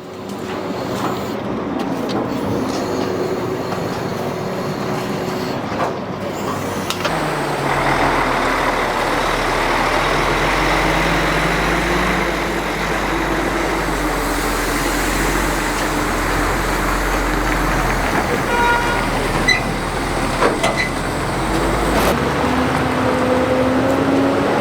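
Heavy truck engine running steadily, working harder and louder from about seven seconds in and easing off a few seconds before the end.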